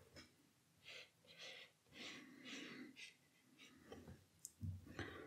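Near silence, broken by a few faint soft rustles and a light knock near the end.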